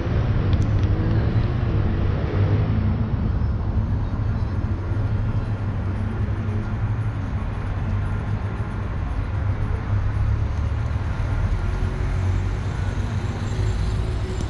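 Street traffic noise: a steady low rumble of vehicles.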